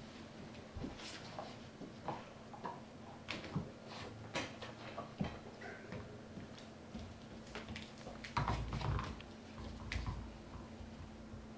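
Dogs working at rubber Kong toys and pawing things on a hardwood floor: irregular knocks, taps and clicks, with a louder, heavier cluster of knocks a little past the middle.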